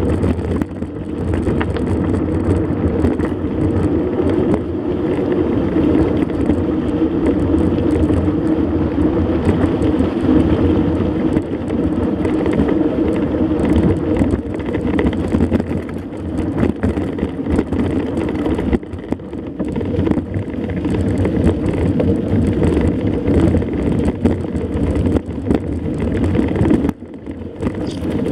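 Mountain bike riding over a rough dirt road: a steady rumble of wind buffeting the microphone with tyre noise and frequent small rattles and clicks, easing briefly near the end.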